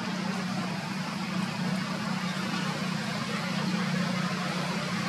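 Steady outdoor background noise with a constant low hum, like distant engine or traffic noise.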